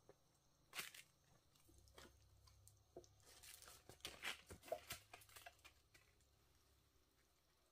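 Faint knocks and crunching as lengths of cut sapling trunk are handled and dragged over dirt and dry leaves, with one sharp knock about a second in and a busier run of knocks and rustling in the middle.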